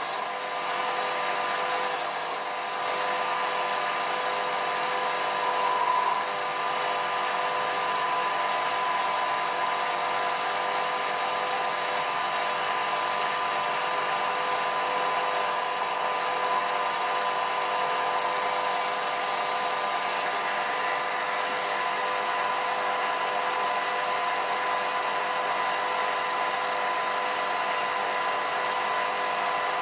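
Holzmann ED750FD benchtop metal lathe running at a steady speed, a steady machine whine with several high tones. A few short high ticks come near the start, about two seconds in and around fifteen seconds in.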